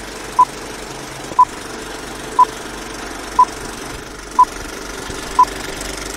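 Old-film countdown leader sound effect: a steady projector-like rattle with a short beep once a second, six beeps in all.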